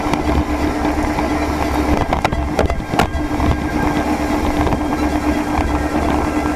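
Haines Hunter 680 Patriot boat under way: its engine running steadily at cruising speed under a rush of wind and water. A few sharp knocks come about two to three seconds in.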